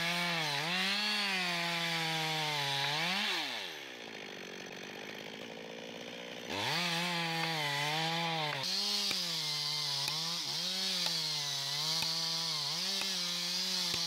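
Stihl chainsaw running at high revs in a felling cut through a large trunk, its pitch dipping and recovering as the chain bites into the wood. About three seconds in the revs fall away to idle, and about three seconds later it is throttled back up. A few light knocks come through in the second half.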